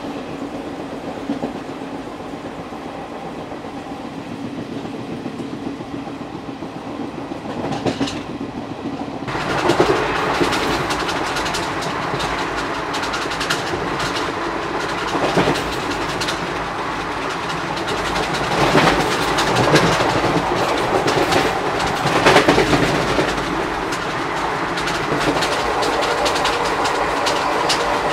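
ICF passenger coach of the Garib Rath Express running on the track: a steady rumble with wind noise and wheels clacking over rail joints. About nine seconds in, the sound turns abruptly louder and brighter, with many sharp clacks.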